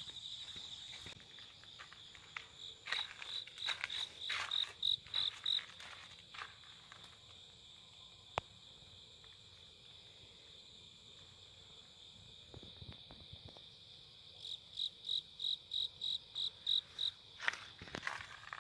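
Night insects such as crickets singing: a steady high trill throughout, and twice a nearby insect chirping in a run of loud, evenly spaced high pulses, about three a second. A few light footsteps and rustles come through.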